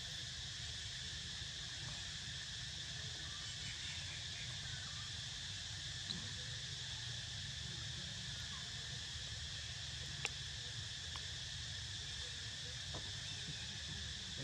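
A steady insect chorus, crickets or cicadas, buzzing without a break over a low rumble, with a couple of faint clicks.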